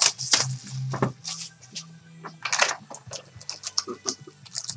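Trading-card pack wrappers crinkling and rustling as packs are handled and pulled from a hobby box, in a quick run of irregular crackles.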